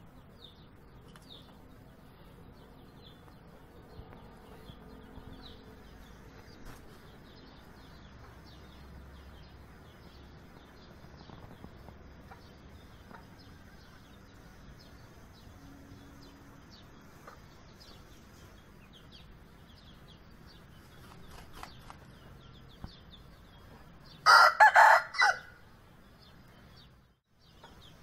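Aseel rooster crowing once near the end, a short loud crow in about four quick pulses lasting just over a second. Before it, faint chirping of small birds in the background.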